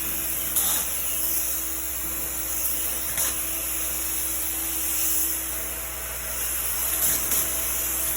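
Spray-foam insulation rig running: a steady hiss over a low machine hum, with a steady tone that fades out about five seconds in.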